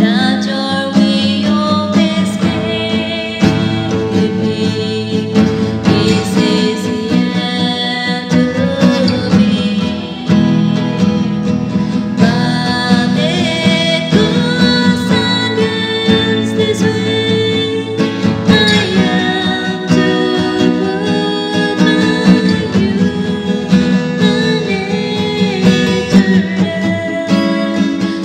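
A woman singing a worship song while accompanying herself on acoustic guitar.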